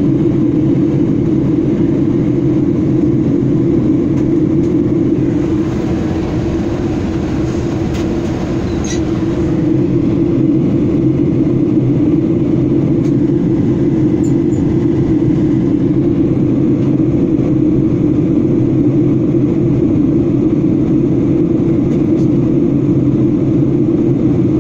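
Steady low roar inside an airliner cabin in flight: jet engine and airflow noise.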